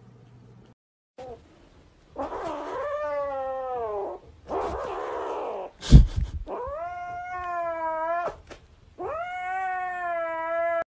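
Grey kitten yowling at a hand that reaches for the stuffed toy it is clutching: possessive, warning yowls. There are three long drawn-out calls of about two seconds each, each rising and then sliding down in pitch. Between the first two come a noisy rushing sound and a sharp thump.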